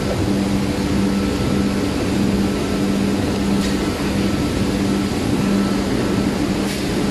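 Machinery running steadily: a constant drone with a low hum.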